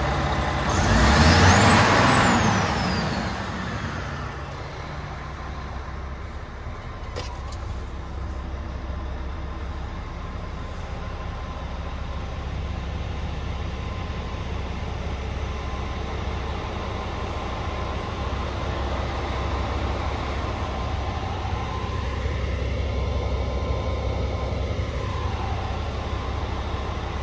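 Scania R480's 13-litre six-cylinder diesel idling steadily, heard from inside the cab. About a second in there is a loud burst of hissing air that fades over the next two seconds.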